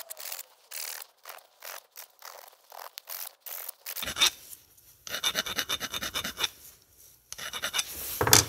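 A metal tool scraping the entry chamfer of the oil-seal bore on an MBK 51 aluminium crankcase half, in short, irregular strokes that grow denser about halfway through.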